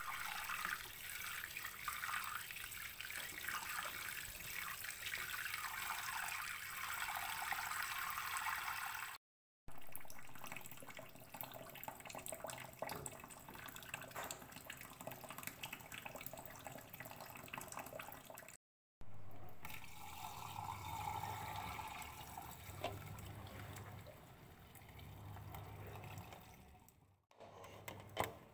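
Tap water running and splashing into a sink pot of cooked rice vermicelli while the noodles are stirred and rinsed by hand. The water sound cuts out abruptly twice for a moment and is a little quieter in the last part.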